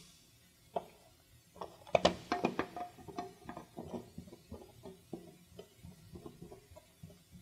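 Hand screwdriver turning a screw through a plastic wall cover into an outlet's center mount hole: a run of small clicks and creaks, densest about two seconds in, then lighter ticks a couple of times a second.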